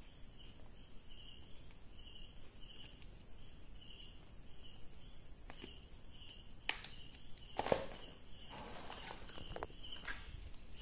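A cricket chirping steadily, about two short high chirps a second. From about five seconds in, a few clicks and knocks of handling, the loudest nearly eight seconds in.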